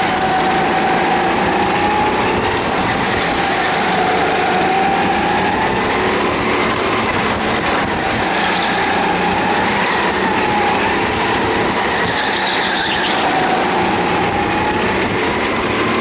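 Go-kart engine running at speed, its pitch rising and falling gently as the kart goes through the corners.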